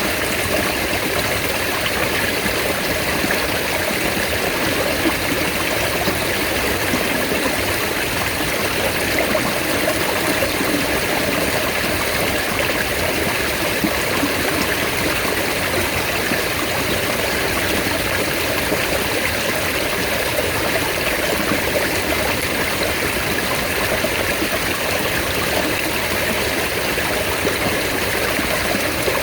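Mountain stream running steadily, an even rush of flowing water.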